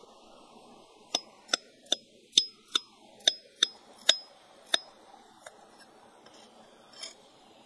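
A large knife chopping a carrot into rounds on a flat stone: about nine sharp clicks of the blade striking the stone, each with a short metallic ring, two to three a second, stopping about five seconds in.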